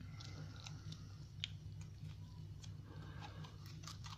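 Faint, scattered small clicks and crackles of a key being handled and its tape wrapping picked at, over a steady low hum.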